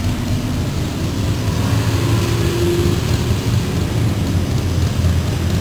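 A steady low mechanical rumble with an even hiss above it.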